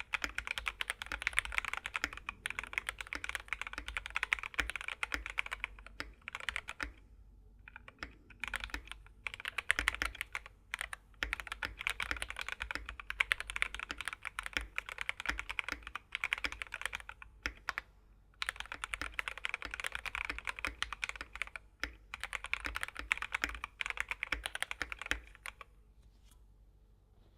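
Keychron K6 Pro mechanical keyboard with Keychron K Pro Red linear switches being typed on in quick, continuous runs of keystrokes, with a few short pauses. The typing stops near the end.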